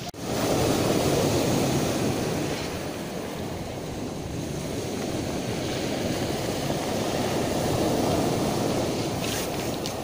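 Sea surf breaking and washing up a pebble beach: a steady rushing that swells about a second in and again near the end.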